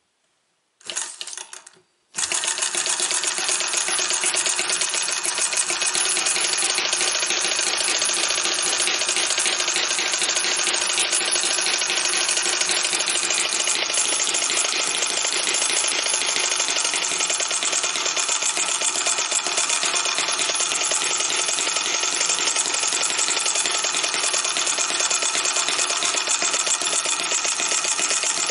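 Small white-gas-fuelled M17-B single-cylinder model engine, started by flicking its flywheel by hand. It pops about a second in, catches about two seconds in and then runs steadily with a rapid mechanical clatter.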